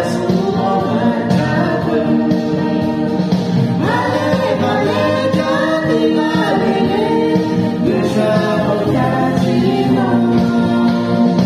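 Music with singing: a sung melody over instrumental accompaniment, loud and steady.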